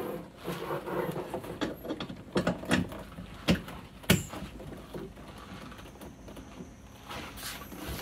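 Clicks and knocks of an air-conditioning manifold gauge hose's quick coupler being pushed onto the low-pressure service port, with the rubber hose being handled. The clicks come scattered and close together in the first half, then thin out.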